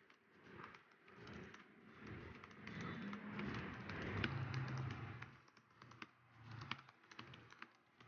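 Fingers typing on a laptop keyboard: a fast, uneven run of light key clicks. A low background rumble swells under them through the middle.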